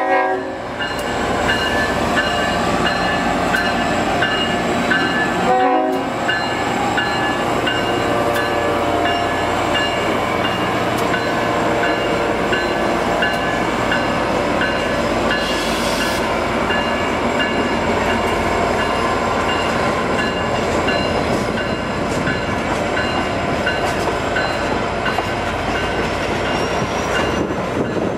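Two EMD F40PH diesel locomotives lead a passenger train past, engines running steadily, with a bell ringing a bit under twice a second throughout. The horn's last note cuts off just at the start, and a short horn blast sounds about six seconds in.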